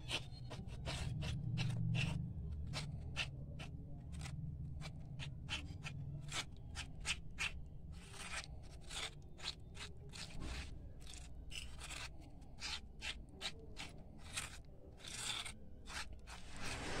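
Steel spoon scraping and tapping around a small steel bowl, stirring oil into flour to make a paste, in quick irregular strokes.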